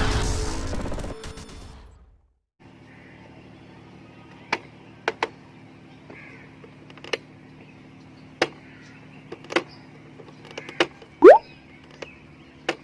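Honda Activa scooter engine running and dying away over the first two seconds, then a faint steady hum with about a dozen scattered sharp clicks and knocks; the loudest comes near the end with a short rising squeak.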